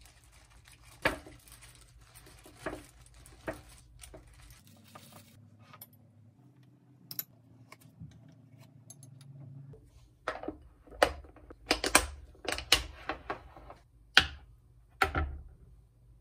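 Kitchen dishes and containers being handled and set down on a countertop: a few scattered light knocks, then a quick run of clinks and clatters in the second half.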